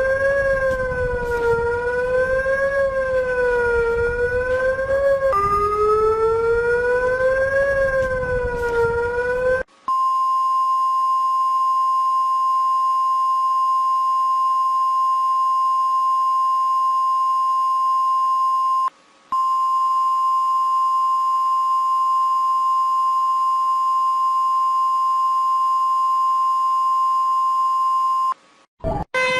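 Emergency alert alarm tones: first a wavering siren-like tone that slides up and down in pitch every second or two, restarting once, for about ten seconds; then, after a short break, a steady single-pitch alert tone held for about eighteen seconds with a brief dropout in the middle.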